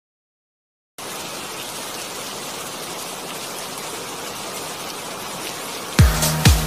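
Silence for about a second, then a steady rain-like hiss for about five seconds. Near the end an electronic dance beat with deep kick drums starts, about two beats a second.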